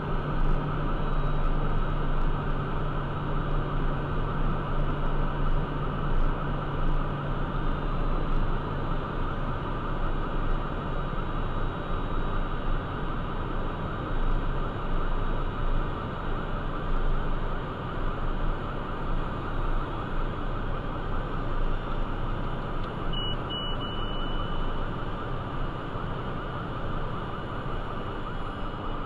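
Steady cockpit noise of a Cessna Citation 501 on final approach: its Pratt & Whitney JT15D turbofans and rushing airflow, with a thin constant whine over the rumble.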